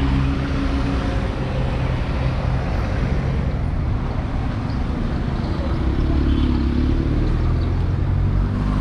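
Street traffic: cars and taxis driving slowly past with their engines running, a steady low hum. One car passing close near the end.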